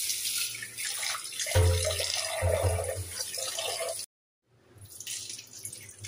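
Kitchen tap running into a pressure cooker while split moong dal is rubbed and swished by hand in the water, rinsing the dal. The sound drops out for about half a second just after four seconds in, then the rinse water is poured out, splashing into the steel sink.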